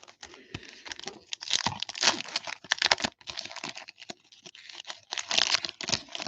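Foil wrapper of a baseball card pack being torn open and crinkled by hand, in irregular bursts of crackling, loudest at about two seconds in and again near the end.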